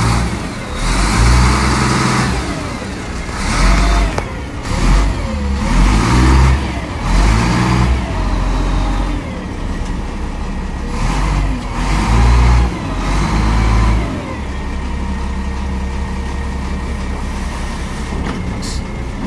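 Diesel engine of a 950 wheel loader revved up and let back down again and again, its pitch rising and falling with each surge, then settling to a steady idle about 14 seconds in.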